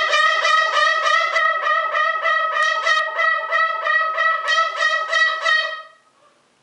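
Greater sulphur-crested cockatoo giving one long, loud, horn-like call of rapid even pulses at a steady pitch, about five a second, that stops about six seconds in.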